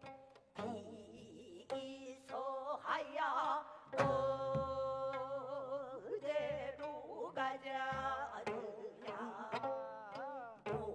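Two gayageum, the twelve-string Korean zither, playing an instrumental passage. Plucked notes ring out and fade, and some notes are bent and wavering in pitch.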